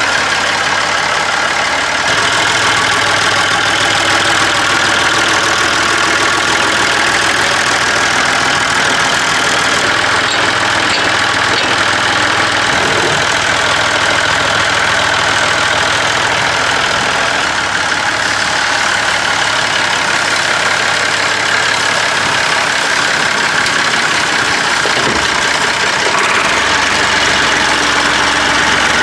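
Massey Ferguson 135 tractor engine running steadily at idle, with small shifts in its note as the tractor is moved.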